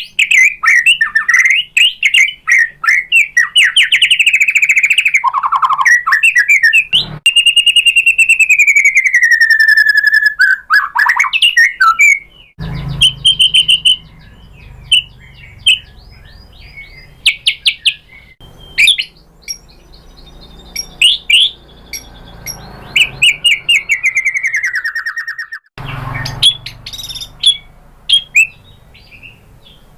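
White-rumped shama singing a loud, varied song of rapid chirps and trills mixed with long whistles that slide down in pitch. The phrases grow sparser in the second half, over a faint low background noise.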